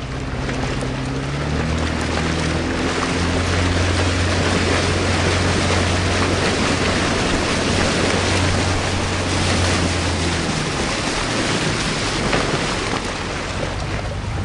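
Boat engine running under way, with rushing wind and water noise. Its low note climbs over the first few seconds, holds steady, then falls away about ten seconds in.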